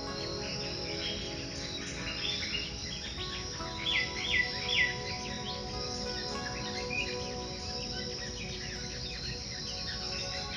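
Birds chirping over a steady insect chorus, with three loud call notes close together about four seconds in.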